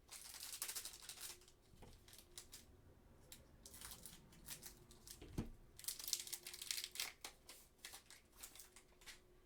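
A trading-card pack wrapper being torn open and crinkled, in several bursts of rustling, with a dull thump a little past halfway.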